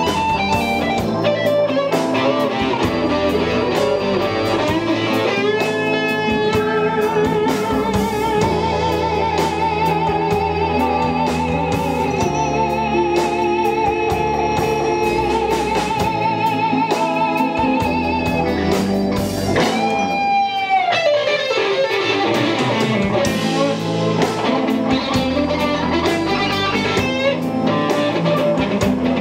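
Live blues band playing, led by an electric guitar solo over bass guitar and drums. The guitar holds long notes with a wavering vibrato, and about two-thirds of the way through one note swoops steeply down in pitch.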